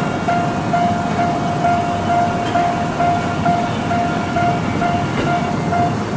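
Japanese level-crossing warning bell ringing steadily at about two dings a second, over the running noise of a Tokyo Metro Ginza Line subway train on the depot tracks.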